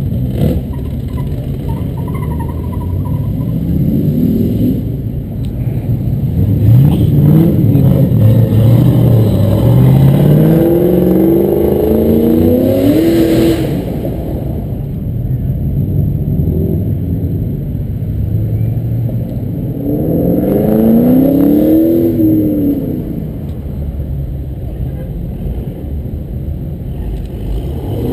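Sports cars pulling away one after another, engines revving up and dropping back in several rising sweeps like gear changes, loudest from about a quarter to halfway through and again about three quarters in, with a steady rumble of idling traffic between.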